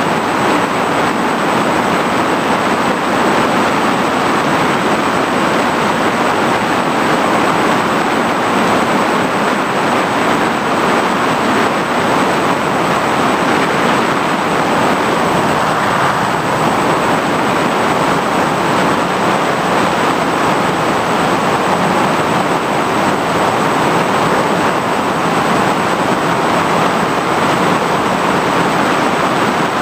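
Steady, loud rushing noise of an FPV model aircraft in flight: airflow and propeller wash picked up on board, with a faint high steady whine, unchanging throughout.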